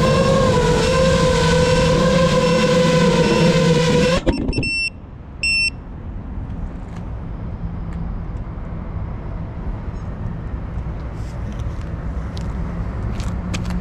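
FPV quadcopter's motors and propellers whining steadily, loud and close, then cutting off abruptly about four seconds in as the drone lands and its motors stop. Two short electronic beeps follow about a second apart, then a low steady outdoor background hum with a few faint clicks.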